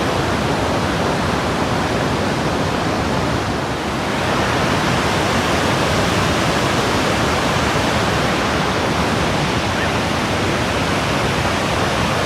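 Large waterfall's loud, steady roar of rushing water.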